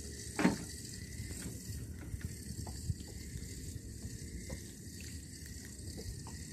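Sea water sloshing and lapping, with scattered small clicks from the fishing tackle. A single brief, louder thump comes about half a second in.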